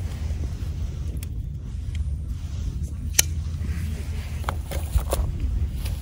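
Wind buffeting the microphone in a steady low rumble, with a small wood fire crackling over it: scattered sharp pops, the loudest about halfway through.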